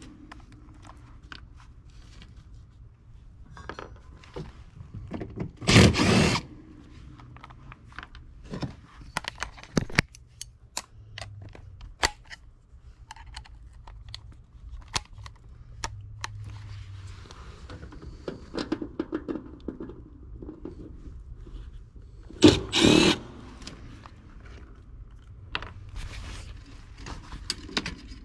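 Cordless drill-driver running in two short half-second bursts, about six seconds in and again near 23 seconds, backing screws out of an air handler's electric heat kit. Between the bursts come scattered small clicks of screws and tools being handled.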